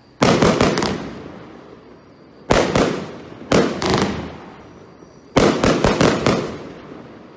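A firework barrage cake firing loud bangs in four quick volleys of a few shots each, each volley dying away over about a second.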